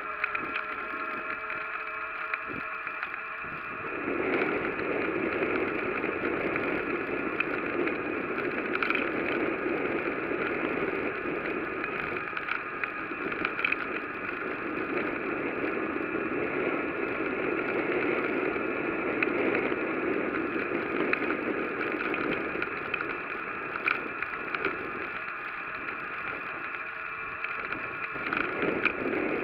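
Bicycle rolling along a road: tyre and riding noise that picks up about four seconds in and eases off near the end, over a steady high whine.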